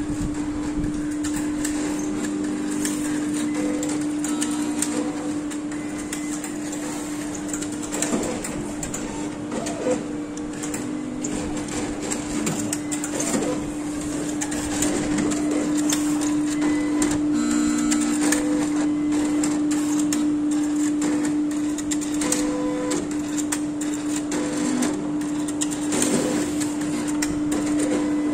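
Roche cobas e 411 immunoassay analyzer running a sample: a steady hum, with short motor whines and scattered clicks as the pipetting arm and sample disk move.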